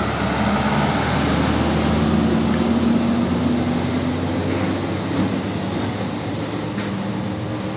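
Diesel engine of a UD Nissan PK series tractor unit hauling two loaded containers, a steady drone as the truck drives past. It is loudest about two to three seconds in, then eases off a little as the truck pulls away.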